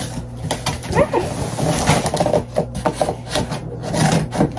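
Scissors cutting into a cardboard shipping box: a run of irregular snips, the blades going through easily.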